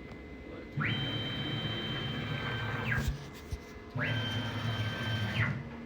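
CNC machine's stepper motors driving an axis in two moves, about two seconds and a second and a half long. Each move is a whine that rises as the motor speeds up, holds a steady pitch, and falls as it stops. This is the motion of a jogging or homing test.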